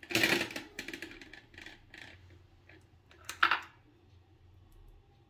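A metal spoon scraping and clinking on ceramic dishes while scooping cream cheese spread and dropping it onto a beetroot slice on the plate: a scrape at the start, small clicks, and a sharper clink-and-scrape about three and a half seconds in.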